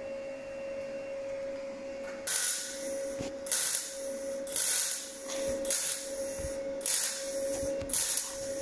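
MIG welding arc sizzling in about six short bursts of half a second to a second, starting a couple of seconds in, as a steel patch is stitch-welded into the rusted underside of a Ford Transit van: the weld is laid in stops and starts so as not to blow holes in the thin metal. A steady hum runs underneath.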